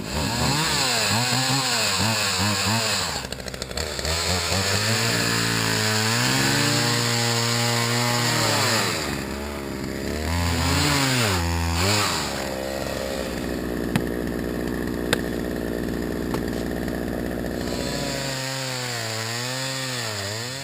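Chainsaw felling a tree, its engine revving up and down over and over as the bar bites into the trunk and eases off. Two sharp clicks come a little past the middle, and the sound drops away right at the end.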